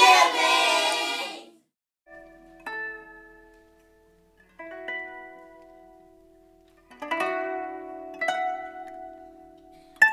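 A group of children's voices calling out together for about the first second and a half. After a short pause, gentle plucked-string music begins: a few sparse notes at a time, each ringing on for a second or more.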